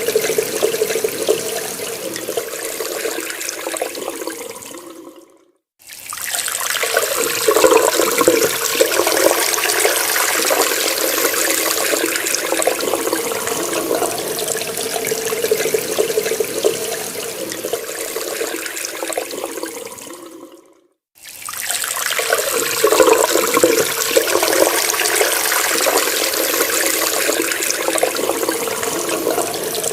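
Water running steadily from a tap. Twice it fades out to silence for about half a second and then starts again abruptly.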